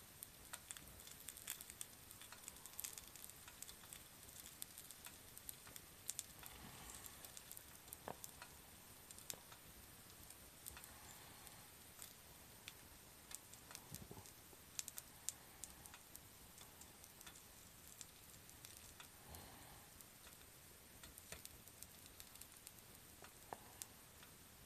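Nori-topped karaage patties sizzling faintly on an electric hot plate, with scattered small pops and ticks throughout.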